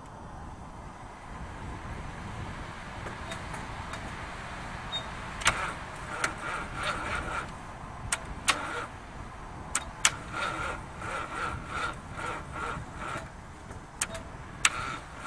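Chevrolet 305 V8 of an old front-end loader being cranked on the starter for a cold start, after five months standing in −5 °C weather. It turns over slowly with a chugging rhythm of about three beats a second, broken by several sharp clicks.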